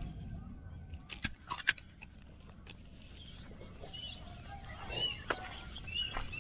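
Spinning rod and reel being handled while fishing, giving a few faint clicks and knocks, most of them about a second into the sound and again near the end, over a steady low rumble.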